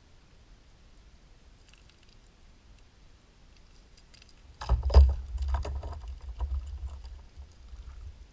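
Sudden low rumbling with scattered clicks and knocks on the microphone, starting about four and a half seconds in, loudest at the start and dying away over the next three seconds.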